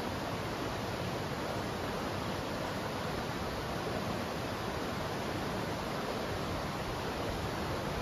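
Steady, even rushing of flowing river water, unchanging throughout.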